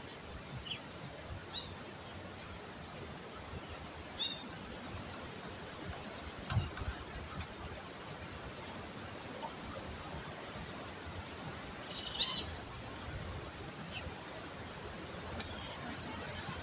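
Steady high-pitched buzzing of insects, with a few short bird chirps, the loudest about twelve seconds in, and a low thump a little past six seconds.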